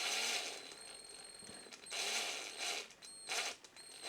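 Small drill run in three short bursts, spinning a miniature diecast wheel-and-axle set to check that the axle turns straight without wobbling.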